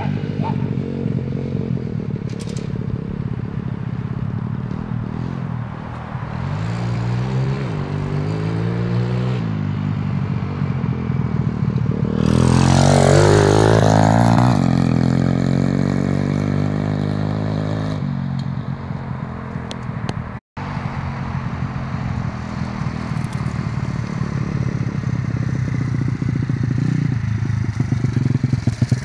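Single-cylinder engine of a 125cc pit bike running as it is ridden around, its pitch rising and falling with the throttle. Loudest about halfway through as it passes close by, and again near the end as it comes up close.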